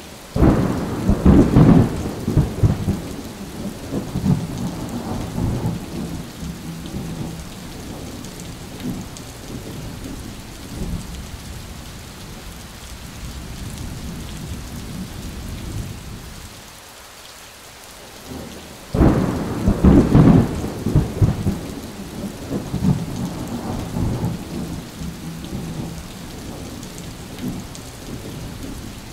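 Steady heavy rain with two claps of thunder, one right at the start and one about 19 seconds in, each breaking suddenly and rumbling away over several seconds.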